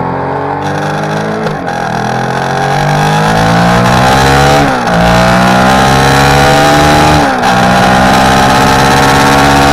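Motorcycle engine accelerating hard through the gears. Its pitch climbs steadily and drops sharply at three upshifts, at about one and a half, four and a half and seven and a half seconds in. Wind rush runs beneath it.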